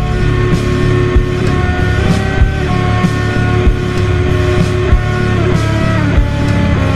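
Slowed-down rock song with heavy reverb: held, echoing electric guitar notes that shift pitch every second or so over a slow, heavy drum beat hitting about every 1.2 seconds.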